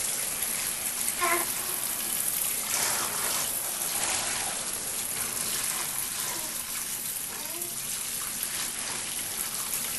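Shower spray running onto a baby in a plastic infant bathtub: a steady hiss of splashing water.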